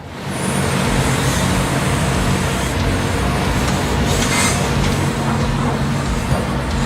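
Heavy machine's diesel engine running steadily at work, a dense, even mechanical noise.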